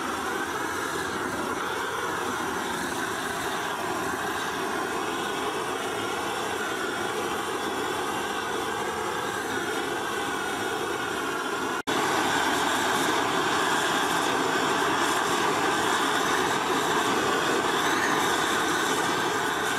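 Hose-fed gas torch burning with a steady rushing roar as its flame heats the ground face of an anvil before hardening. The sound cuts out for an instant about twelve seconds in and comes back louder.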